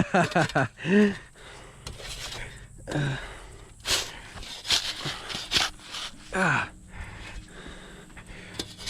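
A shovel scraping and digging into dirt in several strokes, with a man's short falling grunts and hard breathing between them as he works.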